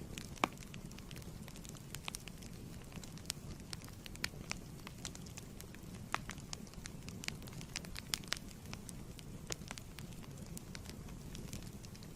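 Wood fire burning in a fireplace, its flames a steady low rumble with irregular sharp crackles and pops from the burning logs, one louder pop about half a second in.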